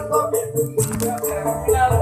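Background music with a steady beat, a shaker keeping time over bass and melody.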